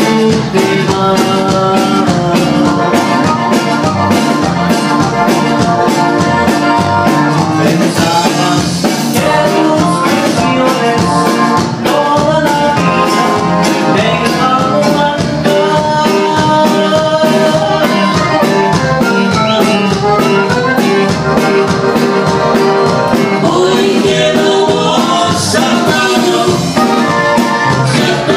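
Live band music with a Roland digital accordion carrying the melody over guitar, bass guitar and drum kit, in a steady Latin dance rhythm.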